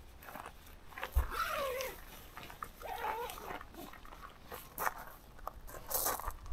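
Fabric of a Durston X-Mid 1 tent rustling and gravel crunching as the tent is gathered up and folded by hand. It is broken by short clicks, and there are two brief gliding voice-like sounds about a second and three seconds in.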